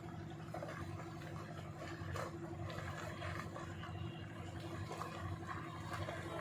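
An engine running steadily with a low drone and a constant tone, with faint scattered knocks and scrapes over it.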